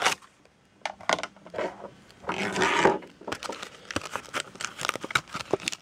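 Clear plastic packaging crinkling and clicking as it is opened and handled to take a phone case out, with a longer, louder rustle of the plastic about two seconds in.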